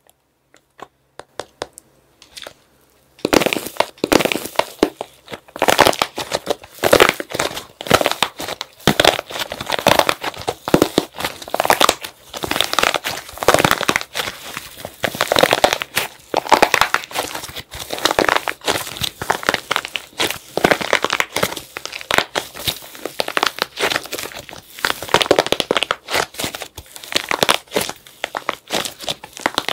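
Hardened plaster-clay shell on a soft clay donut cracking and crunching as hands squeeze it: a few faint clicks at first, then from about three seconds in a dense, irregular run of cracks and crunches. Later the broken shell fragments keep crackling as the soft clay underneath is kneaded.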